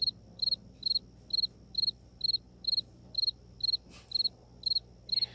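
Cricket chirping in a steady rhythm, about two short high chirps a second.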